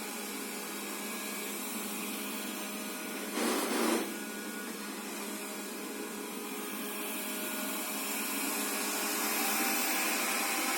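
Xiaomi Mi robot vacuum running with a steady whir. A brief louder rush comes about three and a half seconds in, and the sound grows slightly louder toward the end.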